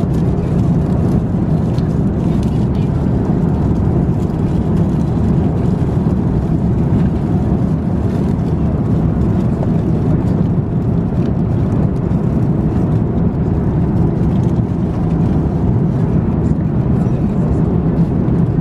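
Steady low cabin noise of an Airbus A350-900 airliner in flight, with faint scattered clicks from plastic meal-dish lids being handled.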